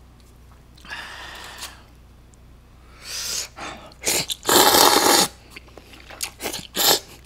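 A person slurping naengmyeon, thin cold buckwheat noodles, in several noisy pulls; the longest and loudest comes just past the middle. A run of short chewing smacks follows near the end.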